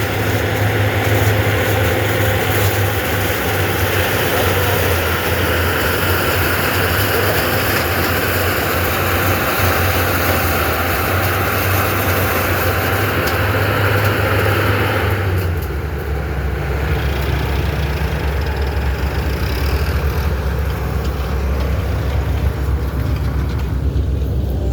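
Sugarcane harvester's heavy diesel engine running steadily with broad mechanical noise. About two-thirds of the way through, the sound drops to a deeper, lower note with less hiss on top.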